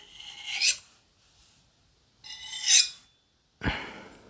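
A knife blade drawn along a sharpener in two long metallic scraping strokes about two seconds apart, each growing louder with a ringing edge, followed by a dull knock.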